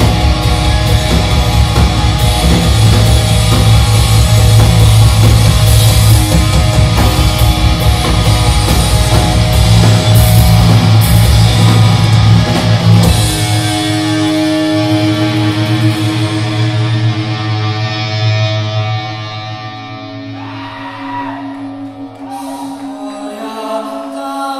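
Live doom/sludge metal band playing heavy distorted guitar, bass and drums. About halfway through the drums stop and held chords ring on, growing quieter toward the end.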